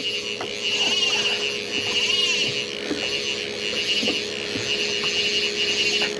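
Fly reel's drag buzzing continuously as a hooked trout pulls line, swelling and easing every second or so, over a steady low hum.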